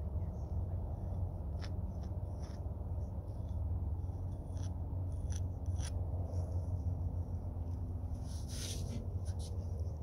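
Light scratching and clicking of paint being worked onto a stretched canvas by hand, in scattered strokes with a longer scrape near the end, over a steady low outdoor rumble.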